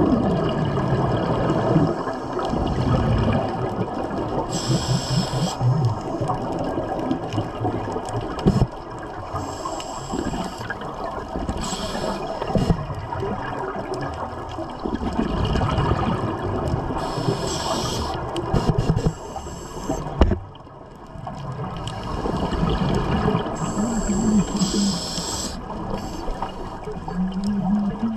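Scuba breathing heard underwater: a short hiss from the regulator on each inhalation, about every five to six seconds, followed by the bubbling, gurgling rush of exhaled air.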